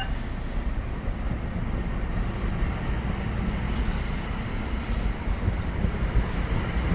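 NJ Transit train running on the tracks: a steady low rumble, with a few faint short high squeaks in the second half.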